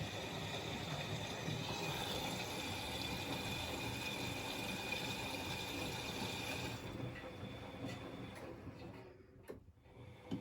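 Water running, with a faint steady whine, cutting off about seven seconds in. A quieter stretch with a few faint clicks follows.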